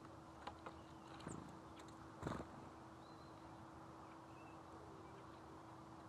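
Tufted titmouse at a sunflower-seed feeder: a few light clicks of seeds and claws on the tray, then one louder sharp knock a little over two seconds in, over a faint steady hum.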